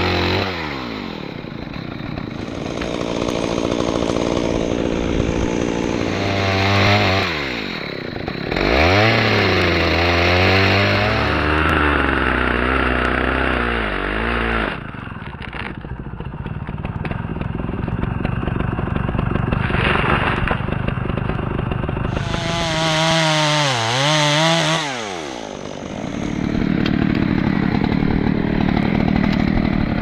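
Chainsaw revving up and down repeatedly, with stretches held at full throttle while cutting into a dead ash trunk; it drops back toward idle at about 15 s and again around 25 s.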